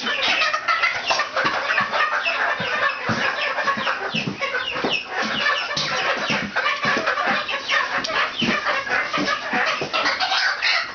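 A group of month-old juvenile chickens cheeping in a dense, continuous chorus of short falling chirps, many overlapping.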